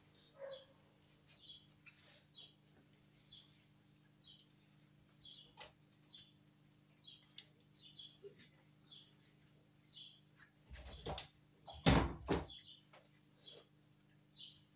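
A small bird chirping over and over, a short high chirp every half second or so, over a steady low electrical hum. A couple of louder thumps come near the end.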